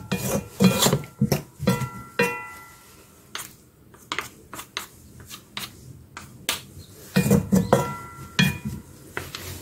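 Wooden spatula knocking and scraping against a coated wok while tossing a king oyster mushroom stir-fry, some strikes leaving a brief ringing tone from the pan. The knocks come thick in the first two seconds and again about seven seconds in, sparser in between.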